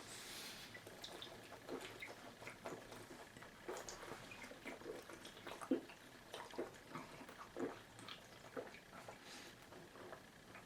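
A man gulping malt liquor from a 40-ounce bottle: a faint string of irregular swallows and liquid sounds, about one every half second to a second.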